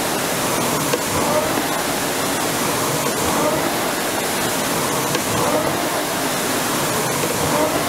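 Concept2 indoor rower's fan flywheel running during a hard interval, a steady rush of air with a rising whir on each drive stroke, about one stroke every two seconds.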